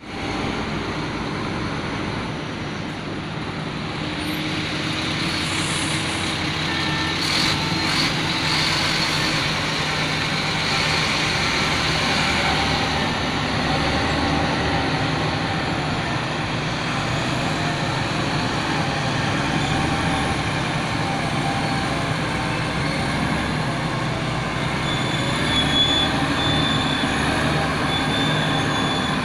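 Heavy diesel earthmoving machinery running steadily: an excavator and an off-road mining dump truck at work. A few brief clanks come about seven to eight seconds in, and a thin high squeal comes near the end.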